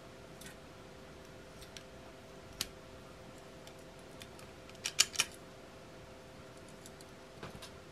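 Stainless-steel folding camping utensil set handled by hand: sharp metallic clicks as the spoon, knife and fork are folded into the handle and the set is pulled apart into its two halves, loudest in a quick run of three clicks about five seconds in.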